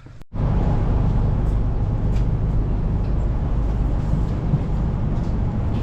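A steady, loud, low engine-like drone that starts abruptly just after the beginning and holds even, as from a machine running nearby.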